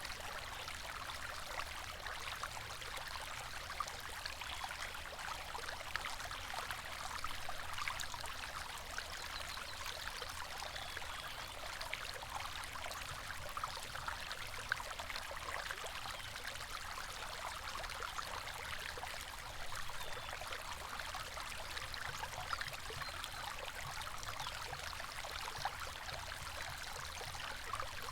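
River water flowing over rocks, a steady babbling rush with small splashes and trickles throughout, over a faint low rumble.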